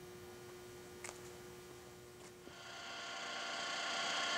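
Low steady hum broken by two light clicks, about one second and two and a half seconds in; then the 1977 Ikeda RM-1375 radial arm drill's drive starts up, its running sound with several steady whining tones growing louder over about a second and a half and then holding steady.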